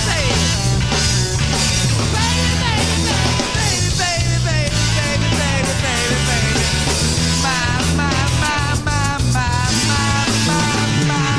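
Rock music: a band playing with a steady bass and drums, and notes that bend up and down in pitch.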